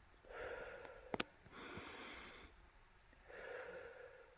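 A woman breathing heavily in three long, slow breaths, winded from hard physical work at about 11,000 feet of elevation. A short sharp click about a second in.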